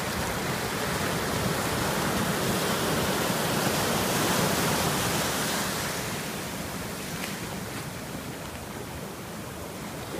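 Ocean surf rushing in over the shallows, a steady wash of foam that swells to its loudest about four seconds in and then ebbs away.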